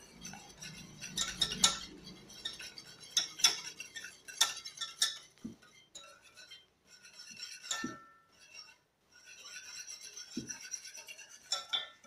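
Hand whisk beating eggs and sugar in a steel pan: quick, irregular clinks and scrapes of wire against metal, with two short pauses past the middle.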